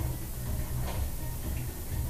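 Background music with a steady bass beat, with a short sharp click about a second in.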